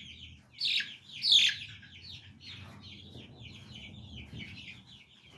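A brood of young chickens peeping: many short, high chirps in quick succession, with two louder calls about a second in.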